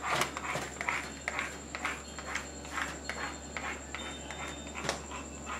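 Hand rubbing and smoothing self-adhesive tile-pattern contact paper onto a kitchen wall: soft swishing strokes about two a second, over a low steady hum.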